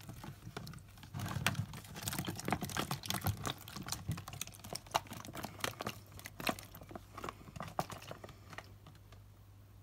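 Rapid irregular clicks, taps and small splashes of hands handling a struggling leopard gecko in a clear plastic tub of shallow water, thinning out after about eight seconds.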